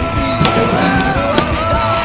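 Rock music with long held tones and a few sharp hits, over the rolling of a stunt scooter's wheels on paving.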